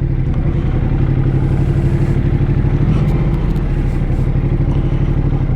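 Ducati motorcycle engine running at a steady low speed, with a fast, even pulsing note.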